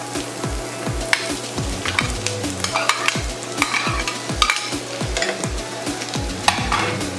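Diced onion and bell pepper sizzling in a frying pan, stirred with a metal slotted spoon that scrapes and clatters against the pan. Underneath runs the steady low beat of background music, about three thumps a second.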